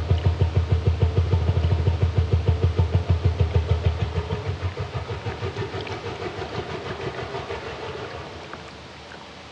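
Hydrophone recording of a blue whale's song played back through laptop speakers: a fast, even train of deep pulses that fades about four seconds in, leaving fainter, rougher sound. This is the long, very low, pulsed unit of the song.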